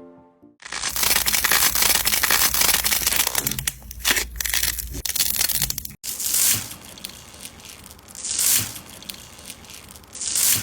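Slime being squeezed and pressed by hand, with a dense crackling, crunchy sound for about four seconds. After a cut, three slower presses about two seconds apart, each swelling and fading.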